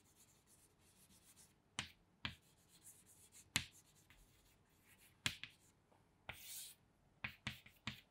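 Chalk writing on a chalkboard: faint, sharp taps of the chalk striking the board as letters are formed, with one short scraping stroke about six seconds in.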